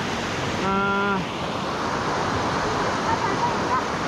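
Mountain stream rushing over rocks, a steady hiss of running water. About a second in, a person's voice holds one short note for half a second, and faint voices come in near the end.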